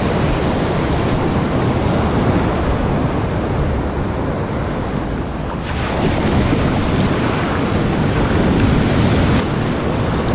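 Ocean surf washing through the shallows, with wind buffeting the microphone. About halfway through, the hiss gets brighter and a little louder as a wave rolls in and foams around.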